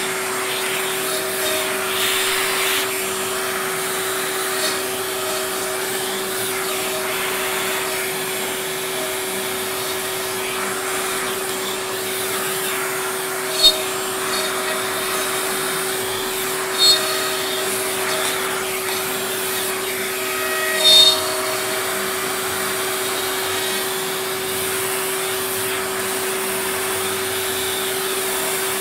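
Vacuum hose running steadily, held right at the bit of a CNC router that is engraving wood, with a steady hum from the running spindle. Three brief, sharp louder sounds stand out in the second half.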